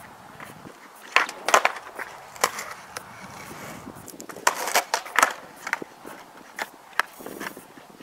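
Skateboard popping and slapping onto concrete: a series of sharp clacks of the tail, deck and wheels striking the ground as flip tricks are tried, several in quick clusters.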